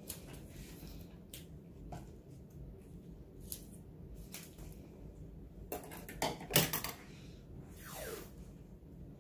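Hands working washi tape and scissors on a plastic-covered diamond painting canvas: soft clicks and crinkles, a cluster of sharper snaps about six to seven seconds in, and a short scrape that falls in pitch near eight seconds.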